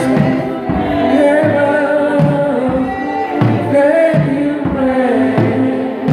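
Live gospel worship music: a voice singing a bending melody over held keyboard chords, with a steady low beat from bass and drum.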